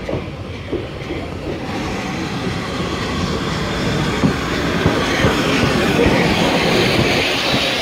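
Steam locomotive and its coaches running into a station platform, a rumbling rail noise that grows steadily louder as the engine comes up and passes close by, with a few sharp clanks scattered through it.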